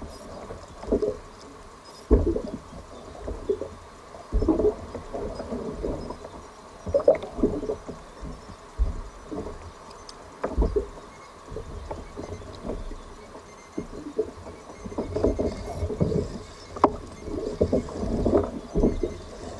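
Water splashing and sloshing around a sea kayak, in irregular bursts every second or two.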